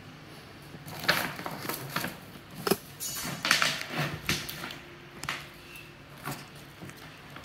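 Stiff brown kraft wrapping paper on a large cardboard box rustling and crackling as it is pulled and cut with scissors. The crackles come irregularly, thickest in the middle seconds, with one more late on.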